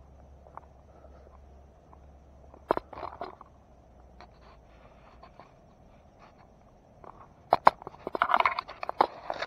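Crackling and rustling close to the microphone from someone moving through grass and brush. There are scattered light ticks, a short burst of crackles about three seconds in, then a dense run of loud crackles and snaps near the end.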